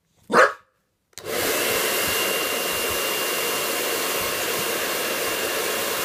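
A boxer dog gives a single short bark, then about a second in a hair dryer is switched on and runs steadily with a rushing blow and a thin high whine.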